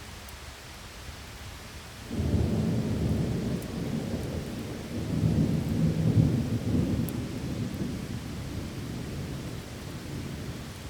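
A thunder roll breaks in suddenly about two seconds in over steady rain, swells again midway and slowly rumbles away.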